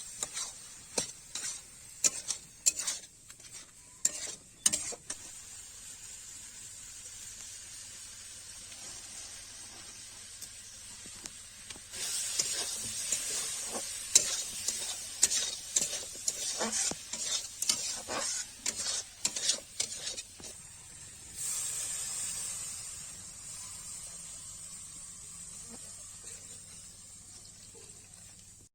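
Food frying in hot oil in a cooking pan, stirred with a spatula that scrapes the pan in repeated strokes. The sizzle jumps sharply louder about twelve seconds in, with a run of quick scrapes. A second burst of sizzling comes later and slowly dies down.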